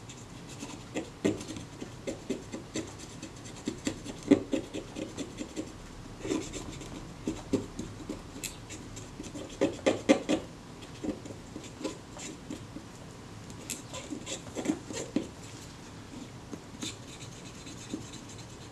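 Cotton bud scrubbing and scraping against the inside of a Kodak Retina IIIS's metal top cover: irregular short scratches and small taps as the cover is turned in the hand, busiest about ten seconds in. It is working brown glue residue off around the viewfinder window.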